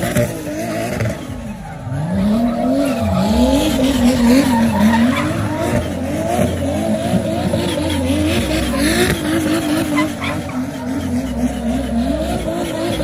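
Drift car doing donuts: the engine revs rise and fall in quick repeated waves under steady throttle blips while the rear tyres squeal and smoke.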